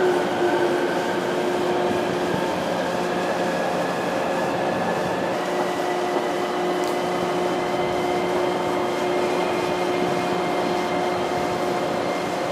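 A 415 series AC/DC electric multiple unit standing with its equipment running: a steady hum with several steady whining tones, whose mix shifts a little about two and five seconds in.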